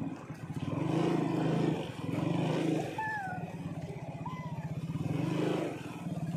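Motorcycle engine running at low speed with a fast, even pulsing as the bike rolls slowly along.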